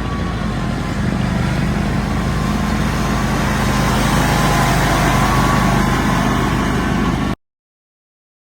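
An engine running steadily with a low hum and a faint wavering whine. It cuts off abruptly about seven seconds in.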